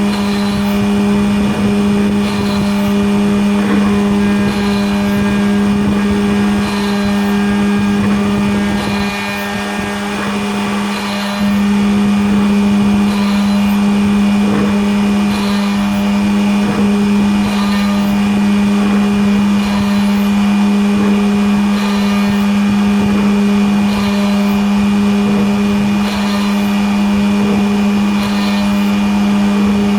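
Homemade Arduino-controlled CNC machine running: a steady motor hum with a faint tick repeating about once a second, dipping slightly in level for a couple of seconds about a third of the way in.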